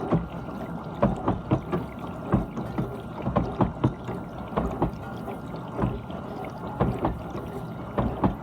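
GE dishwasher running its wash: a steady whine under water spraying and splashing irregularly inside the tub.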